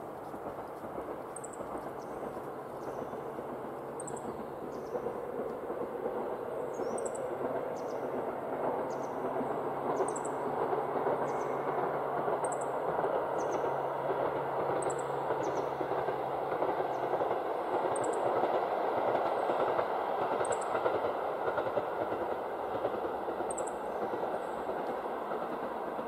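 Diesel railcar running on the line, its rumble growing louder to a peak about three-quarters of the way through, with a low hum that drops away about two-thirds in. A bird gives short high calls every second or two.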